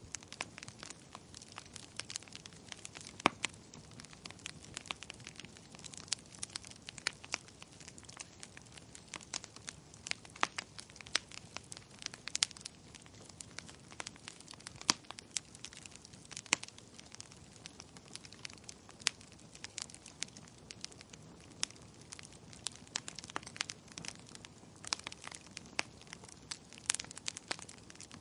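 Wood fire crackling in a fireplace: a steady soft hiss with many sharp irregular pops and snaps from the burning logs.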